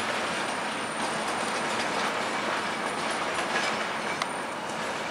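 Stainless-steel passenger cars of a long train, the Park observation car at the rear, rolling away over switches, with a steady wheel-and-rail rumble. A faint thin high squeal runs through the first few seconds, and a single sharp wheel click comes about four seconds in.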